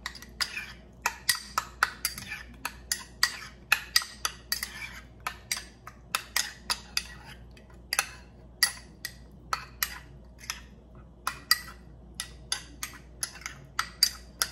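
Metal spoon stirring a thick tomato-and-carrot paste in a small ceramic bowl: repeated irregular clinks of the spoon against the bowl's sides, a few a second, with soft scraping between.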